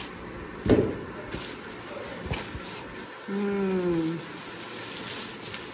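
Polystyrene foam packing being handled and lifted apart, with a sharp knock just under a second in and a rustle of plastic wrap around a boxed wall clock. A short hum from a person's voice a little past halfway.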